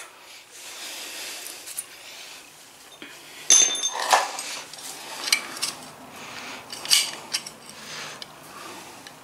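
Old steel muffler pipe being unscrewed from the aluminum exhaust port of a 1973 Briggs and Stratton engine: scattered metal clinks and scraping, with one ringing clink about three and a half seconds in.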